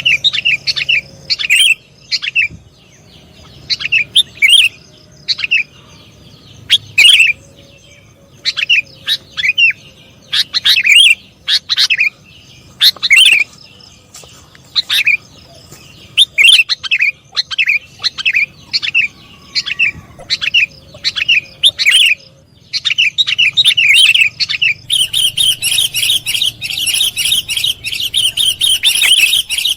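Sooty-headed bulbul (kutilang) calls: loud clusters of short, sharp chirps with gaps between them, breaking into a dense run of rapid chattering notes near the end.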